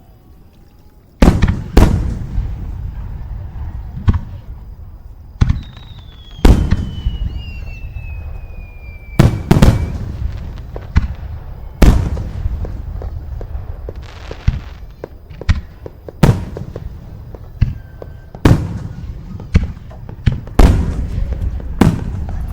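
Fireworks going off: a series of loud booming bangs at irregular intervals of one to two seconds, the first about a second in. A long whistle falls slowly in pitch between about six and ten seconds in.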